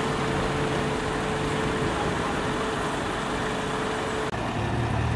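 Steady motor-vehicle engine and road-traffic noise, with a thin steady hum. About four seconds in, the sound changes sharply and a deeper engine drone takes over.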